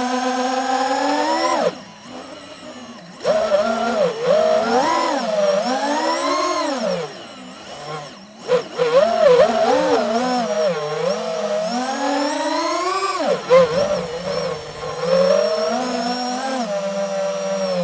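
DJI FPV drone's motors and propellers whining, the pitch sweeping up and down with the throttle. Twice the whine drops away to a much quieter level for a second or so, then comes back.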